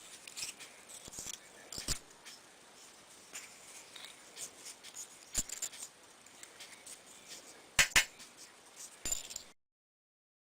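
Quiet hand-cutting sounds as circles are cut out for a vacuum cleaner: scattered light clicks and short scrapes with no motor, and a sharp double click about eight seconds in. The sound stops abruptly about a second before the end.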